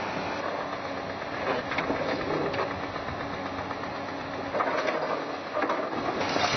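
Diesel engine of an L&T-Komatsu PC200 hydraulic excavator running steadily, with a few scattered knocks.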